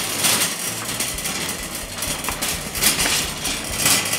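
A small toy metal wire shopping cart rolling across a hard tabletop, its little wheels rattling steadily with scattered clicks.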